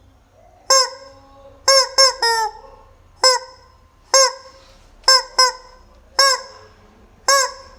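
Rubber chicken squeezed over and over, giving about ten short, loud honking squawks at uneven intervals, some coming in quick pairs.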